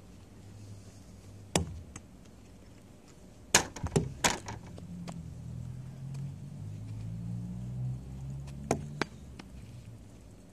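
Several sharp knocks: one about a second and a half in, a quick run of three or four around four seconds, and two more near the end, over a low, wavering hum in the middle.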